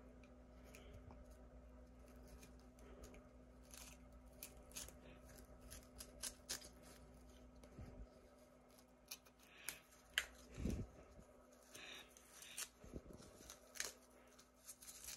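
Small scissors snipping tangled hair from a Dyson vacuum roller brush: faint, scattered snips and clicks, irregularly spaced, with a few slightly louder ones about two thirds of the way in.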